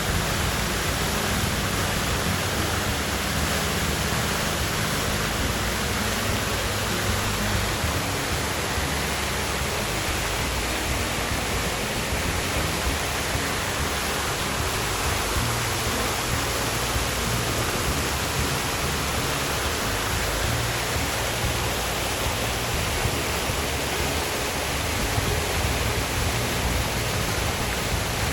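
Water fountain running, its falling water making a steady splashing rush.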